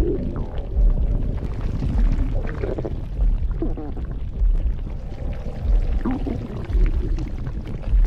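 Close-miked wet stomach gurgling and sloshing, over a slow, regular low thud that repeats a little less than once a second.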